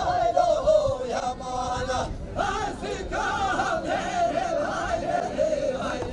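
Men's voices singing a Kurdish folk song together, unaccompanied, with wavering held notes, as the sung accompaniment to a govend line dance.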